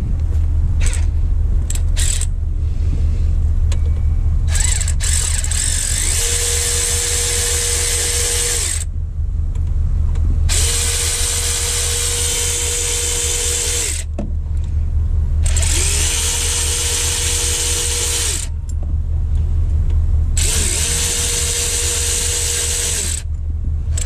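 Hand-held power tool backing out the water pump's mounting bolts, run in four bursts of about three seconds each, its motor spinning up to a steady whine at the start of each. A steady low hum runs underneath.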